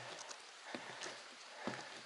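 A hiker's footsteps on a mountain trail, a regular thud roughly every second, over a steady outdoor hiss.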